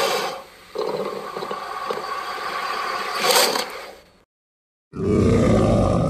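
Dinosaur roar sound effects. A raspy, growling roar breaks off briefly about half a second in, flares near three seconds and fades out about four seconds in. After a short silence, a second call with a clear pitch starts about five seconds in.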